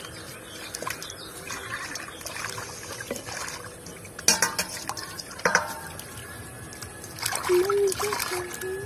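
Hands swishing and rubbing cut magur catfish pieces in water in a stainless-steel bowl, the water sloshing and trickling, with two sharp clinks of metal in the middle. A short pitched sound with small breaks comes in near the end.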